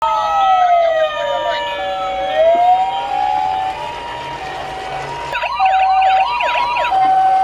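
Several emergency-vehicle sirens sounding together. A two-tone hi-lo ambulance siren alternates steadily between two pitches. Over it, a wailing siren slides slowly down and back up in the first few seconds, and a fast up-and-down warbling siren starts about five seconds in.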